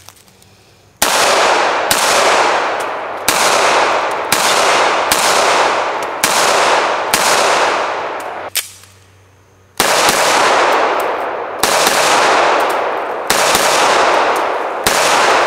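Roberts Defense 1911 pistol fired in a string of about eight shots roughly a second apart, then after a short pause four more slower shots. Each shot rings out with a long fading echo.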